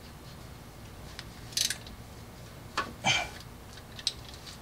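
Brief metallic handling sounds while a rear differential drain plug is refitted: a short scrape about one and a half seconds in, then a click and a clink near three seconds, over a low background.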